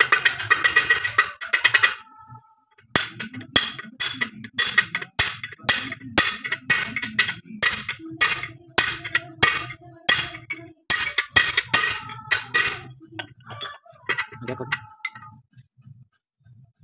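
Hammer striking a steel pipe to drive a new ball bearing down onto the crankshaft of a 5 HP borewell air compressor. There is a quick flurry of sharp metallic taps, then a steady run of ringing strikes at about three a second, which slow and stop near the end.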